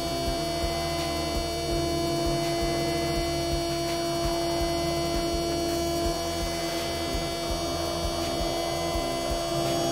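A 6040 CNC router's spindle running with a small end mill cutting the outside profile of a metal plate: a steady whine over a hum, with a shift in its tone about six seconds in.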